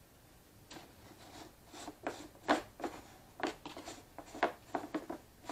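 Plastic fuel cap being twisted off a lawn mower's gas tank: a run of about a dozen short, irregular plastic scrapes and clicks, starting under a second in.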